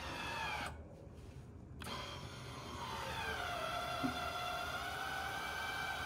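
Motorised actuator of a remote-control flail mower whining as it opens and closes the mower's feed-inlet flap. The whine falls in pitch, stops for about a second, then starts again and settles into a steady tone.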